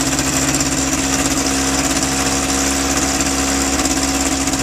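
Kitfox light aircraft engine running steadily at an even speed during a ground run.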